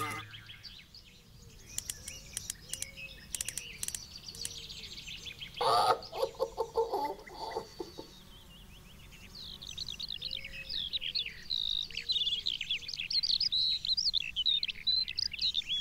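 Cartoon insect sound effects: faint ticks and small rising-and-falling squeaks, with a short, louder buzzing burst about six seconds in. Then, from about ten seconds on, birds chirping quickly and steadily.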